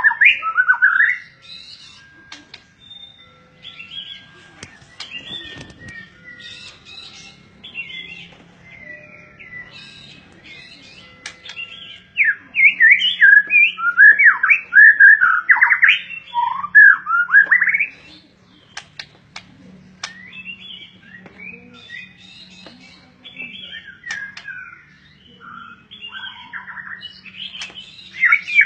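A songbird singing: quick runs of varied whistled and chirping notes that sweep up and down in pitch, with a loud, dense burst of song in the middle and quieter, scattered phrases before and after.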